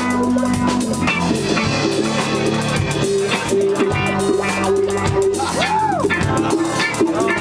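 Live rock band playing loudly, with electric guitar, bass and drum kit; about six seconds in a single note bends up and back down.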